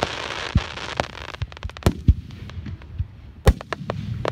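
Aerial firework shells bursting in a rapid, irregular series of sharp bangs, with a crackling hiss over the first second or so. The loudest bang comes about three and a half seconds in.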